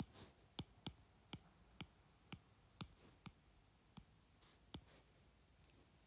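Stylus tip tapping and clicking on an iPad's glass screen while handwriting numbers, about ten faint sharp clicks at roughly two a second, thinning out near the end.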